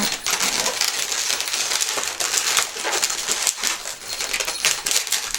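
Inflated latex balloons being twisted and wrapped together by hand: rubbing, scratchy crinkling and brief squeaks of latex on latex, with small clicks throughout.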